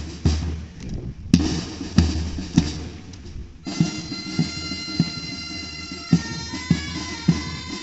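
Pipe band playing a march: the drums beat a steady march time, a little under two strokes a second. About four seconds in the bagpipes strike in, their drones holding steady under the chanter tune while the drums carry on.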